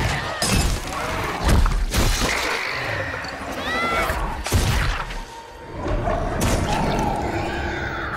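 Film action sound mix: a run of heavy thuds and crashes over rain and background score, with a short shrill creature cry about four seconds in.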